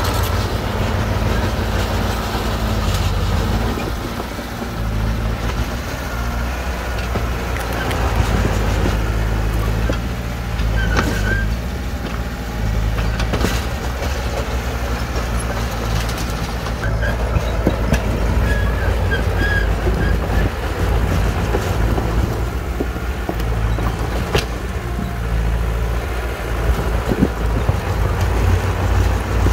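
Shantui DH17C2 bulldozer's diesel engine running steadily under load as it pushes rock fill, rising and falling a little, with a few sharp knocks.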